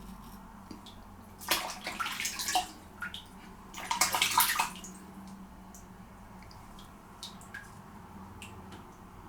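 Running water splashing in two short bursts, about a second each, typical of a straight razor being rinsed under a tap mid-shave, with faint scratchy ticks between and after.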